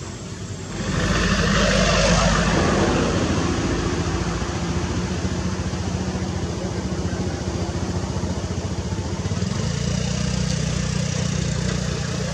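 Komatsu hydraulic excavator's diesel engine running, revving up sharply about a second in, then holding a steady working note with a second rise near the end.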